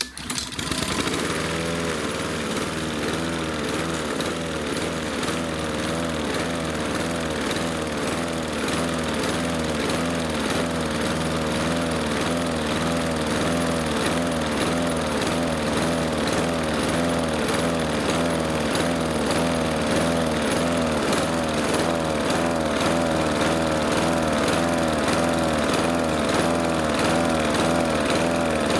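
Husqvarna lawn mower's Honda GCV160 single-cylinder engine running. Its speed rises and falls rhythmically, a surging (hunting) that the owner suspects comes from blocked carburettor jets.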